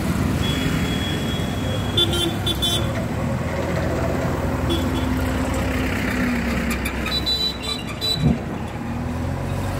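JCB backhoe loader's diesel engine running with a steady low rumble. Thin, high-pitched horn tones sound twice over it, the first for about two seconds, the second shorter past the middle, and a short knock comes near the end.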